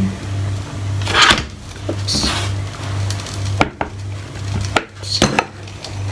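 Kitchen clatter: a handful of separate knocks and clinks of utensils against dishes and pans, over a steady low hum that pulses about twice a second.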